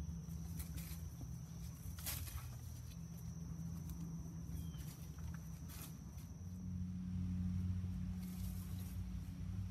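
Wooden poles of a stick shelter knocking and leafy branches rustling as they are handled, with a few sharp clicks, over a steady low rumble.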